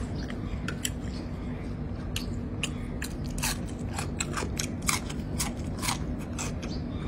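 A person eating with close, crisp chewing and crunching, many short bites and chews. The sharpest crunches come from about three seconds in, as a raw green vegetable pod is bitten. A steady low hum runs underneath.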